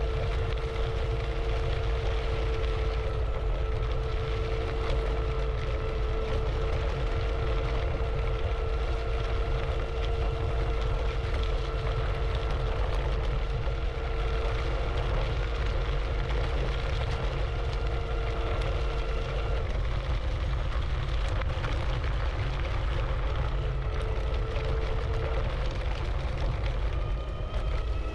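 IO HAWK Legend e-scooter's 500 W geared motor whining steadily under power, over a heavy low rumble. The whine drops out about two-thirds of the way through, comes back briefly, then returns rising near the end. A loud whine like this is normal for this geared motor's design.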